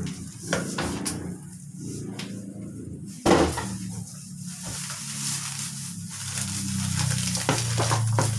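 Plastic packaging and plastic gloves crinkling and rustling as hands pull a plastic bag off a boxed toy machine. A loud, sharp crackle comes about three seconds in, over a low steady hum.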